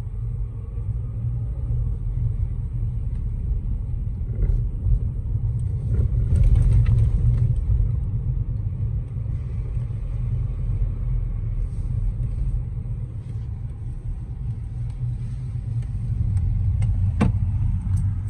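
Low rumble of a car driving, its engine and tyres heard from inside the cabin, swelling twice. A single sharp click near the end.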